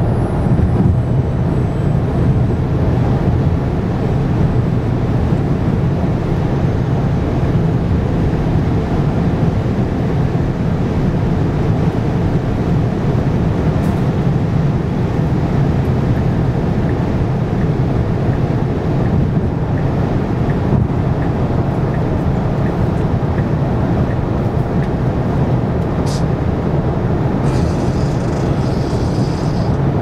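Steady road and tyre noise with wind rush inside the cabin of a Tesla Model Y cruising at highway speed. It is an even low rumble with no engine note.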